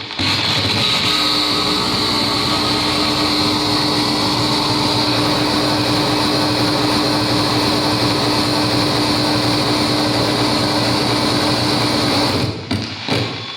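Live harsh noise music: a dense, loud, unbroken wall of electronic noise with a steady held drone through most of it, breaking up into stuttering cut-outs near the end.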